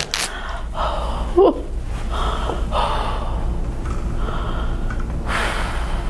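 A person breathing hard after a Y-strap neck decompression pull: several heavy breaths, with a short rising voiced 'oh' about one and a half seconds in.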